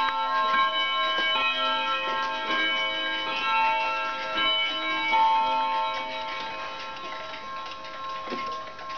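Several mechanical clocks striking twelve for noon together: overlapping gong and bell strikes that ring on and die away slowly, with ticking underneath. The strikes thin out and the sound grows quieter in the last few seconds.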